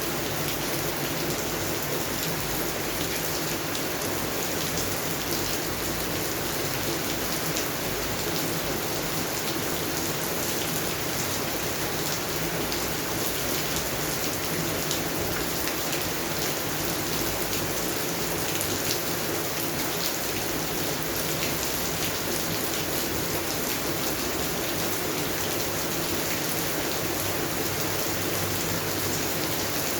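Steady rain falling on a garden's plants and ground, a constant hiss with many small drop ticks.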